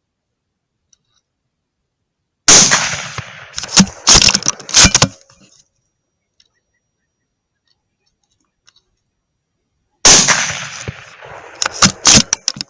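Two gunshots about seven and a half seconds apart, each a sharp crack with a tail that dies away over about a second. Each shot is followed by a quick run of sharp metallic clicks and clanks.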